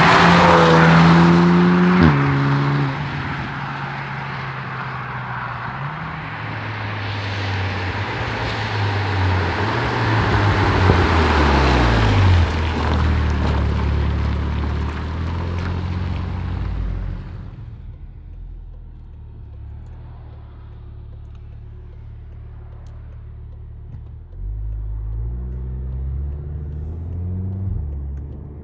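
VW Golf R Mk7.5's turbocharged 2.0-litre four-cylinder running through an aftermarket OPF-back exhaust as the car drives past. The engine note drops about two seconds in, then runs on under load with tyre hiss on the wet road. After about seventeen seconds it settles to a low rumble, and it revs up again in steps near the end.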